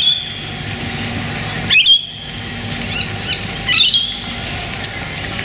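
A bird calling loudly three times, about two seconds apart, each call a short burst of sharp, gliding high notes, with a couple of fainter chirps between. A low steady background noise runs underneath.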